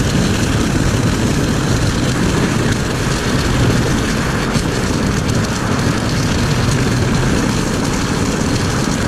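Steady, loud road noise of a vehicle driving, with tyre and engine rumble and a hiss.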